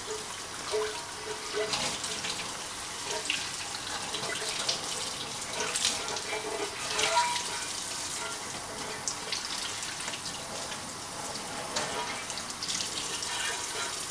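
Tap water running into a sink as a cast-iron grill pan is rinsed under it, with a few light clinks scattered through.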